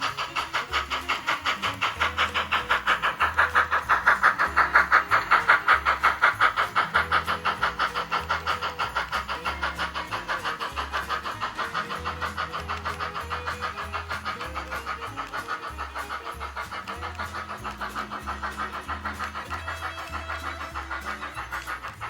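Model train running past on the layout: a fast, even rhythmic clatter that grows loudest about five seconds in, then slowly fades. Background music with a bass line plays underneath.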